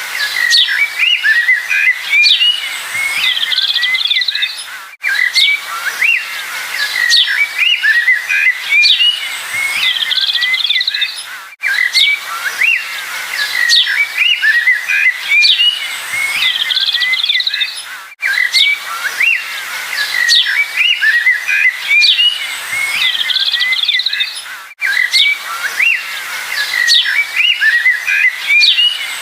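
A chorus of songbirds chirping and whistling in many quick, high, rising and falling notes. It is a short recording looped: the same few seconds of birdsong repeat about every six and a half seconds, with a brief dropout at each join.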